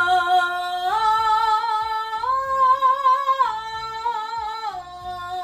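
An alto woman singing a vocal exercise in chest voice: three notes stepping up to a held C5, then back down again. The top note is held for about a second.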